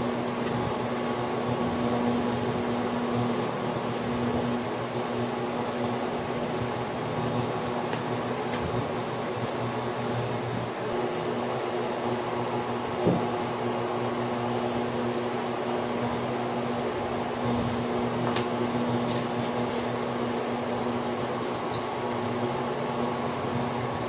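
Steady hum of a running fan with a low steady tone underneath, and one short knock about thirteen seconds in.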